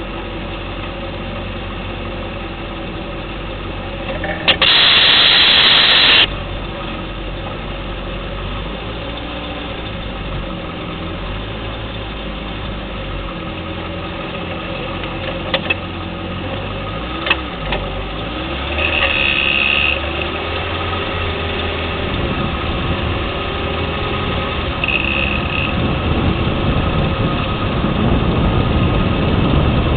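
The 2010 Lexus LS 460L's 4.6-litre V8 runs with a steady hum, and the suspension gives two sharp clicks about a second and a half apart near the middle. The clicking is a suspension fault that the owner suspects comes from a lower control arm or steering knuckle. A loud hiss lasting under two seconds comes early, and short high beeps sound twice later on.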